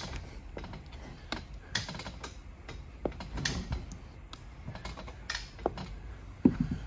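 Flathead screwdriver prying a silicone-lubricated rubber isolator up out of a Tesla Model 3/Y strut top hat: irregular small clicks and scrapes of the blade against the metal housing, with a louder cluster of knocks near the end.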